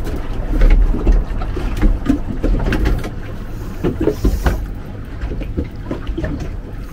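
Gusty wind and water noise on a small fibreglass boat, a low rumble that swells and fades unevenly, with scattered knocks and clicks from gear on board.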